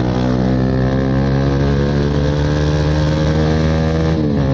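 Bajaj Pulsar NS200 single-cylinder engine under throttle, its exhaust loud with the dB killer (baffle) removed. The pitch climbs slowly, then dips briefly near the end and holds steady again.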